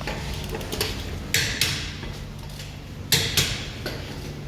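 Sharp metallic knocks in two quick pairs, about two seconds apart, over a steady low workshop hum.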